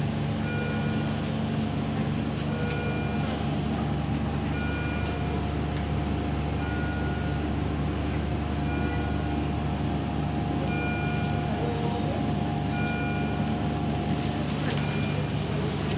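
Intensive-care medical equipment: a steady low machine hum with a short high electronic beep repeating about every two seconds.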